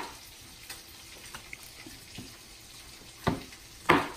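Chef's knife chopping brown mushrooms on a plastic cutting board: a few light cuts, then two sharp chops in the second half, over a faint steady hiss.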